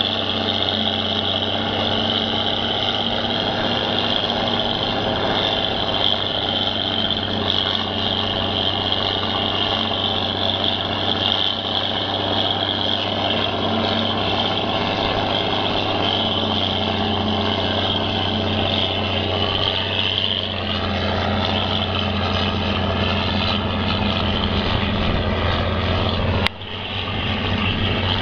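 John Deere self-propelled forage harvester running while chopping a heavy crop: a steady high whine over a low engine drone. A sharp click and a brief drop in level come near the end.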